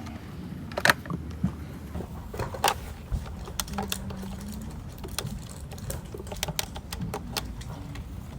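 Computer keyboard typing: irregular, unhurried keystrokes with pauses between them, one sharper click about a second in.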